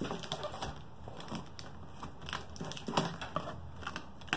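Cardboard shipping box being handled on a cloth-covered table: scattered rustles, scrapes and light knocks of the cardboard as it is turned over and steadied for cutting the packing tape.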